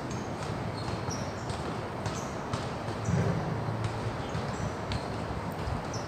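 Steady outdoor background hiss with scattered short, high chirps and light ticks, and a brief low rumble about three seconds in.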